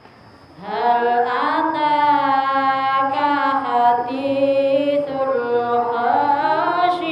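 A woman reciting the Qur'an in the melodic, chanted style of tilawah, into a microphone. It is one long phrase of held, ornamented notes that wavers in pitch and starts about half a second in.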